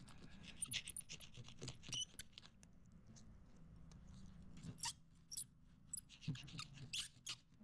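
Single-edge razor blade scraping excess cured windshield-repair resin off the glass: faint, irregular scratchy scrapes and ticks.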